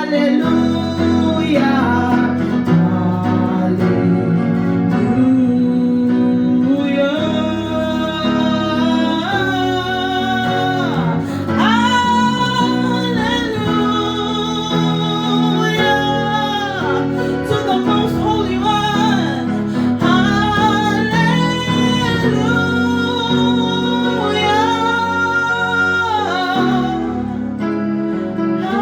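Worship music: a voice singing long, held notes over a steady instrumental accompaniment that includes guitar.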